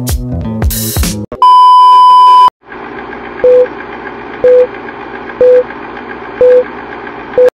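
Background music cuts off about a second in. A loud, steady electronic beep follows for about a second, then a steady hiss with short, lower beeps about once a second, five in all.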